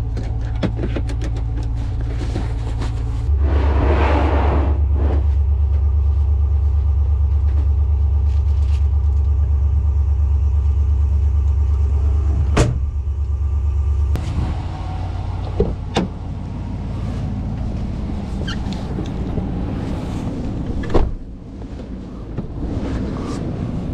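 Low steady rumble of a car running, heard inside the cabin. It grows much louder from about three seconds in, then drops back after about ten seconds. A few sharp knocks of handling come near the end.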